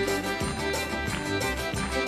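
Instrumental passage of a pop song played by a band, with no singing.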